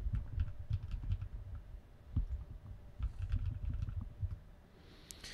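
Typing on a computer keyboard: a quick run of keystrokes, a pause with a single sharper stroke, then another run of keystrokes.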